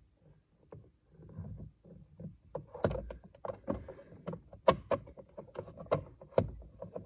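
Handling noise around the steering column: a low rumble of fumbling, then a scattered run of sharp clicks and knocks of hard plastic and tools from about three seconds in.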